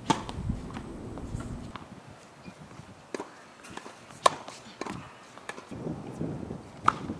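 Tennis racket striking the ball on serves, each hit a sharp pop: one right at the start, the loudest about four seconds in, and another near the end. Lighter taps and footsteps on the hard court come in between.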